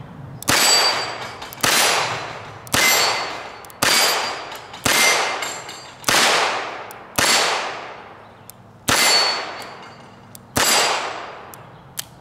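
Smith & Wesson 617 .22 LR revolver fired in slow double action at steel plates: nine shots about a second apart, the last two a little further apart. Each shot is followed by the steel ringing and fading away.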